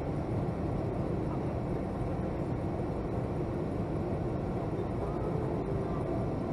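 Steady low rumble and air hiss inside the cabin of a Boeing 757-200 waiting to depart, the aircraft's ventilation and machinery noise with no distinct events.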